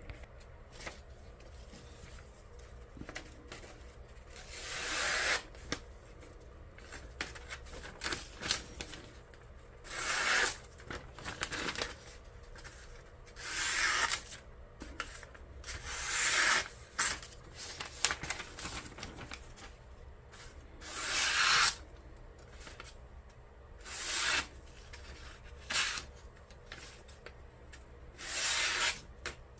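A thick-stocked Nitro V knife blade drawn through a material in slicing strokes, about seven of them a few seconds apart, each a short rasping swish, with small clicks between. This is a test of the factory edge's sharpness.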